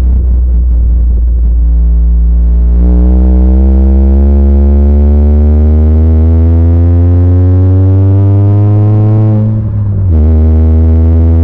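Honda Fit's four-cylinder engine through a Yonaka aftermarket exhaust, accelerating, heard inside the cabin. A deep steady drone sits under an engine note that climbs slowly in pitch as the revs rise. About ten seconds in the sound dips briefly for a gear change and the note drops lower.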